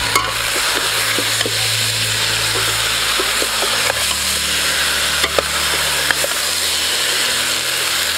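Chicken feet sizzling in a stainless steel pot as they are stirred with a metal ladle, with scattered clicks and scrapes of the ladle against the pot.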